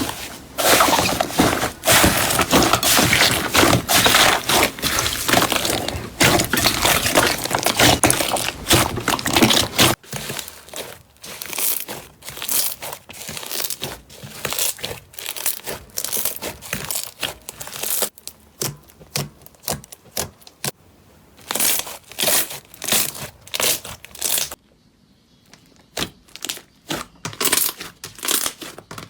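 Slime being squeezed and worked by hand, crackling densely for about the first ten seconds, then giving separate sharp crackles and pops with a brief pause near the end.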